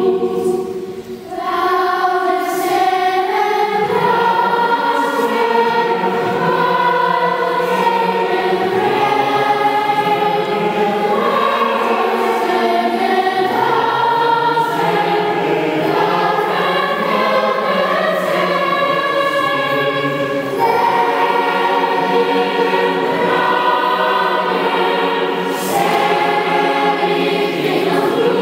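A children's choir and a boys' choir singing together, with a short break in the singing about a second in before the phrase goes on.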